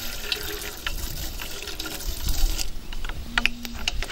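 Fenugreek seeds sprinkled into hot oil in an aluminium pot, the oil sizzling with scattered sharp crackles as the seeds fry.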